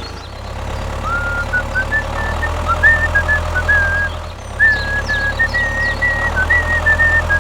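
A small engine running steadily, with a high piping line of short stepped notes over it.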